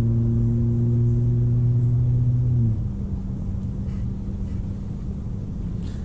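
A steady low machine hum with overtones. About three seconds in it drops abruptly to a lower, thinner hum.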